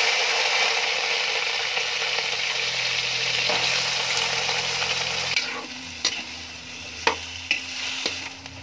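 Food sizzling in hot oil in a pan, loud and steady, easing after about five seconds, with a few sharp knocks of a cooking utensil against the pan near the end as it is stirred.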